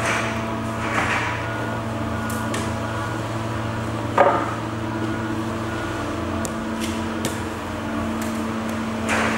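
Wooden knocks as a yellow cedar bulwark piece is fitted onto the boat's rail: a few light taps and one sharp knock about four seconds in, over a steady low hum.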